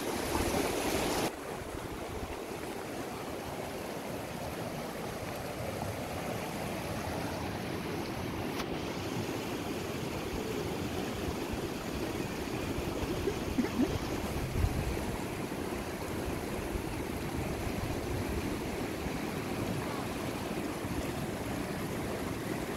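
Shallow mountain river rushing over rocks, a steady wash of water. About a second in the sound drops slightly and changes, and a few brief low thumps come near the middle.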